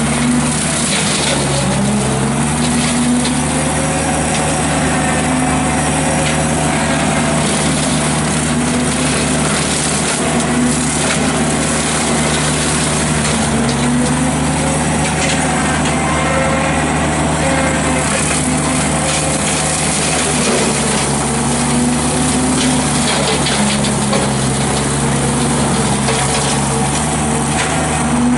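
Ditch Witch SK755 mini skid steer running hard, driving a CID Xtreme 42-inch hydraulic brush cutter through sapling growth. The engine pitch sags and recovers every few seconds as the cutter takes load, with scattered sharp cracks from woody stems.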